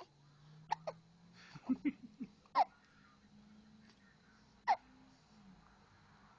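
A little girl hiccupping repeatedly: short, sharp hiccups, a few small ones early on and two loud ones about two and a half and four and a half seconds in.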